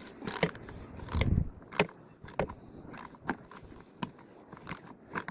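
Scattered metallic clicks and knocks, with a duller thump about a second in, as aluminum brackets and hardware are handled and fitted onto a frame.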